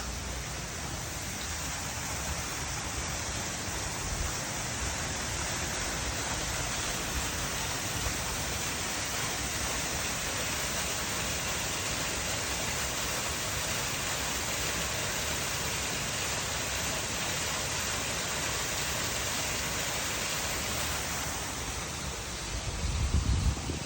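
Waterfall rushing, a steady hiss of falling water that eases slightly a little before the end. Just before the end there is a brief low rumble on the microphone.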